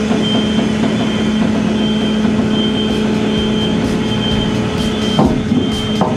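Diesel engine of a Smash My Trash compactor truck running steadily with a constant hum, and a brief knock about five seconds in.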